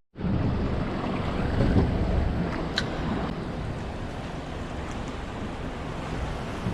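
Strong wind buffeting the microphone over waves washing on the shore, a steady rushing noise, with one faint click about three seconds in.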